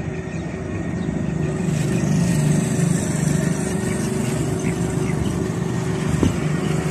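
A steady engine hum, growing fuller about two seconds in.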